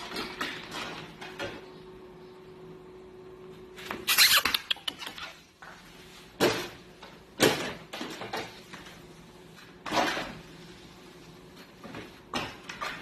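A puppy's paws thumping and scrabbling on a treadmill belt and deck: scattered knocks and short clatters, the busiest flurry about four seconds in, then single knocks every second or two, over a faint steady hum.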